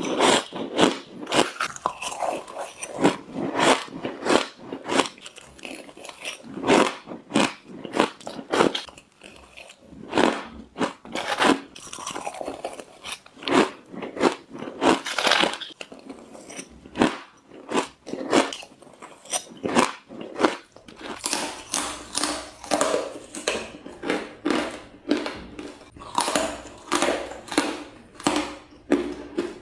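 Frozen matcha ice being bitten and chewed close to the microphone: a steady run of sharp, crisp crunches, about one or two a second. Spoonfuls of shaved ice dusted with matcha powder are eaten first, and a hard frozen block of matcha ice is bitten near the end.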